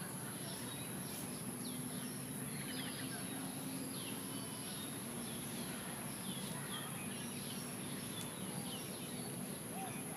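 Outdoor park ambience: birds chirping in short, scattered calls over a steady low background hum and a constant high-pitched hiss.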